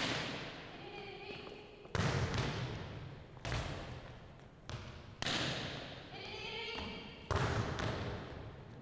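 Volleyballs being hit and bouncing on a hardwood gym floor: a sharp smack every second or two, about six in all, each ringing on in the gym's echo. The loudest come about two seconds in and near the end.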